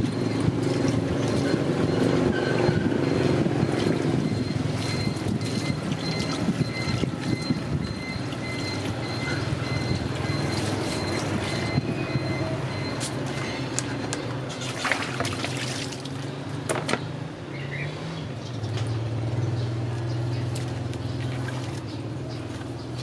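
A motor engine running steadily as a low hum that shifts slightly in pitch, with scattered small clicks and light splashes of water while a wet baby monkey is washed by hand.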